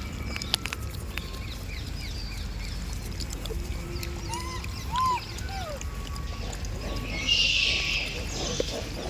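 Monkey calling: a few short rising-and-falling squeaks around the middle, then a louder, noisy cry lasting about a second, about seven seconds in, over a steady low rumble.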